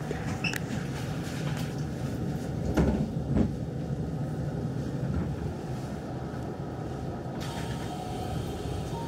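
Hanshin 5500-series commuter train heard from inside the car as it comes to a stop at a platform: a low rumble with two clunks about three seconds in. Near the end a hiss rises as the sliding passenger doors open.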